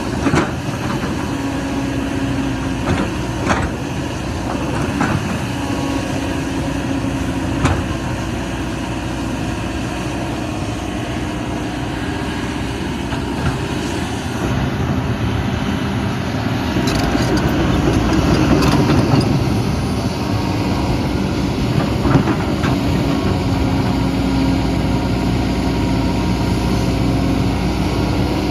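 Excavator's diesel engine running steadily, with a few sharp knocks scattered through. The engine gets louder for a few seconds past the middle.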